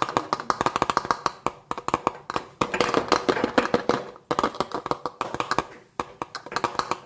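Rapid light clicking and tapping of a metal spoon against small glass bottles as herbs are spooned and packed in, with a couple of brief pauses.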